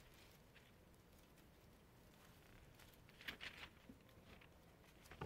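Near silence: room tone, with faint rustling of paper pages being turned about three seconds in.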